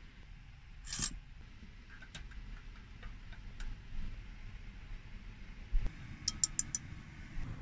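Metal teaspoon clinking against a glass of coffee: one sharper clank about a second in, scattered light clinks while stirring, then four quick taps on the rim near the end.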